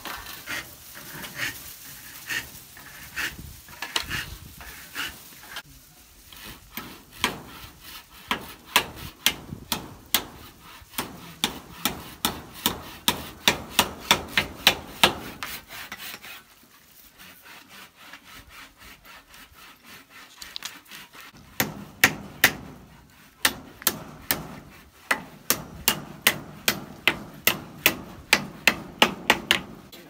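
A hand tool working bamboo: quick, sharp, regular strokes, about three a second, in two long runs with a quieter stretch between them.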